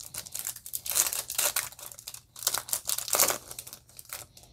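Foil Yu-Gi-Oh booster pack wrapper being torn open and crinkled by hand: an irregular run of crackling rustles that dies away about four seconds in.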